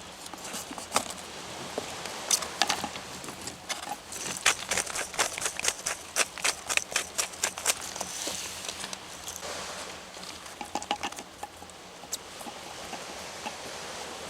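Knife chopping herb leaves on a cutting board: scattered cuts, then a fast run of quick cuts about four seconds in, slowing to occasional cuts later.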